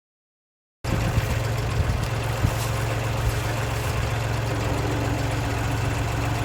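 Silence for under a second, then a tractor engine running steadily, with a few short knocks in the first couple of seconds.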